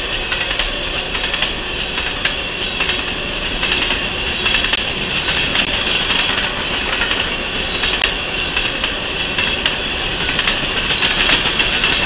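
Freight train of empty covered grain hopper cars rolling past, with a steady clatter of wheels over the rails.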